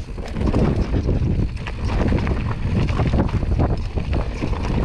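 Wind buffeting the camera microphone while a Giant Stance 29 full-suspension mountain bike rolls down a rocky trail: the tyres crunch over loose stones and gravel, and the bike gives off a steady stream of small knocks and rattles as it bounces over the rocks.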